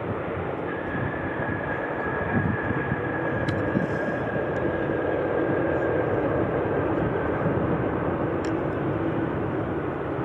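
Jet airliner's engines running close by: a steady rushing noise with a high, thin whine held over it that sags slightly in pitch.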